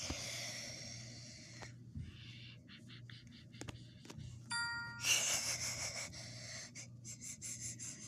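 Stock Android notification tones played one after another as short previews. The sounds are faint, with a shimmering hiss, a few clicks, a brief chord of steady tones about halfway through and a bright noisy chime right after it. A steady low hum sits underneath.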